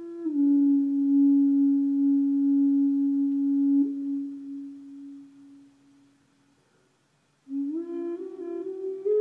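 Native American flute playing a slow melody. A long held low note fades out about six seconds in, and after a short pause a quick rising run of notes climbs to a higher held note near the end.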